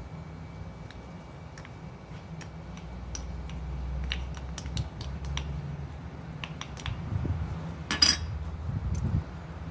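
A spoon clicking and scraping against a ceramic ramekin as mayonnaise is scooped out into a glass salad bowl, then a short clatter near the end as the ramekin is set down in a ceramic dish. A steady low rumble runs underneath.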